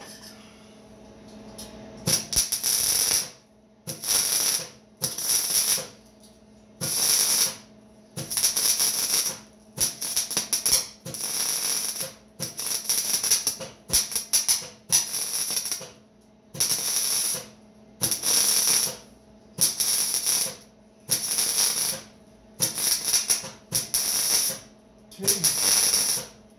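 Steel being worked by hand in steady, even strokes: about seventeen scraping strokes, each about a second long, one every second and a half, over a steady electrical hum.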